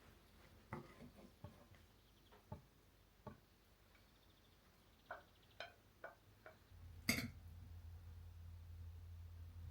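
Scattered light clicks and taps of kitchenware being handled. About seven seconds in, a sharper click is followed by a low steady hum that starts and keeps going.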